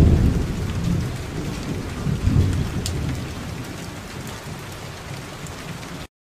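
Steady rain falling on wet ground, with low rolls of thunder: the loudest right at the start and another about two seconds in. The whole sound fades down and cuts off just before the end.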